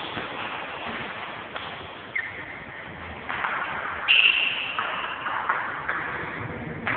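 Table tennis being played: a few sharp clicks of a celluloid ping-pong ball on paddles and table over a steady hall noise, with a brief high squeak about four seconds in.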